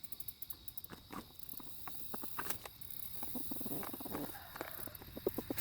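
Water dish being lifted and handled in an animal pen: scattered light clicks and scuffs, with soft, short animal calls in the second half.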